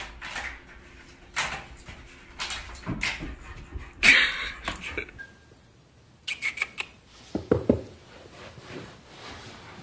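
A puppy's noises among a string of short knocks and scuffles.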